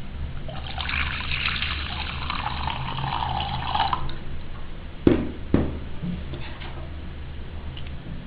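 Chicken stock poured from a jug into a glass bowl of ground nut paste, running for about three and a half seconds and stopping about four seconds in. About a second later come two sharp knocks.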